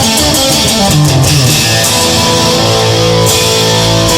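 Blues-rock song between sung lines: guitar playing a moving line, then settling into held chords about two seconds in, with bass underneath.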